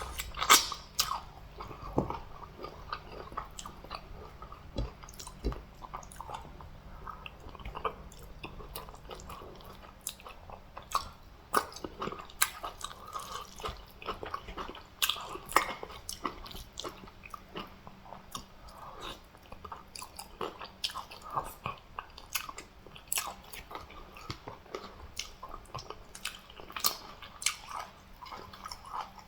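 Close-miked eating: wet chewing and mouth smacking, with frequent short clicks and crunches as fufu, soup, fish and meat are eaten.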